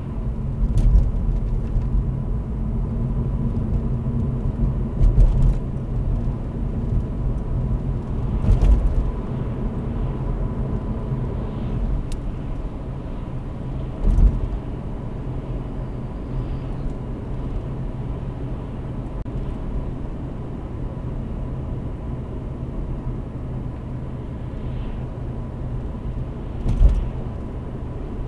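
Steady engine and tyre-on-road rumble heard inside the cabin of a 2016 Vauxhall Corsa 1.4 manual driving at about 30–40 mph, with a few brief thumps, the loudest about 14 s and 27 s in.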